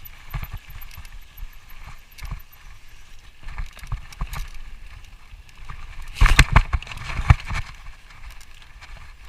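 Mountain bike ridden over rough trail: irregular rattling and knocking with wind rumble on the microphone. The loudest stretch is a burst of clattering about six to seven and a half seconds in.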